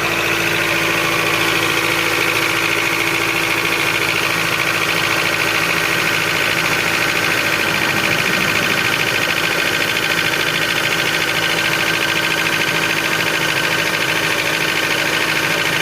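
Honda K20A4 2.0-litre inline-four idling with a steady, fast knocking from the top end. The owner calls the engine very noisy, especially cold, and a teardown traced the knock to worn camshaft bearing caps, with the camshafts not seating tightly.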